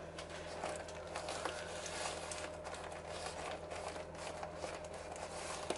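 Rustling and crinkling of paper and plastic packaging being handled, with scattered light taps and clicks, over a steady low electrical hum.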